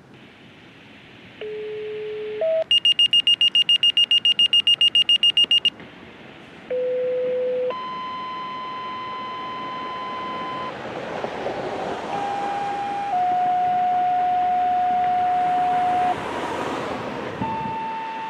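Siren-activation signalling tones coming over a radio receiver: a sequence of steady beeps, each held between half a second and a few seconds and stepping from one pitch to another. About three seconds in there is a run of rapid high beeps, about five a second, and a hiss rises in the second half.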